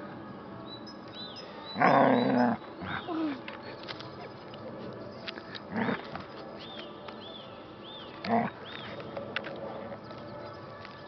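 White Swiss Shepherd dog grumbling and growling in short bursts while worrying a log. The longest and loudest grumble comes about two seconds in, with shorter ones around six and eight seconds.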